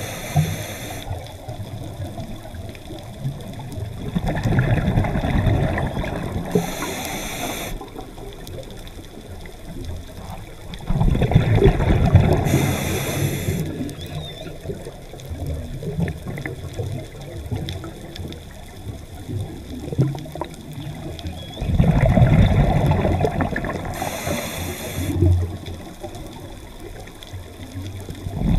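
Scuba diver's breathing heard underwater through the camera: three loud bursts of bubbling exhaled air about eight to ten seconds apart, each with a short high hiss of the regulator near its end, over a steady low water noise.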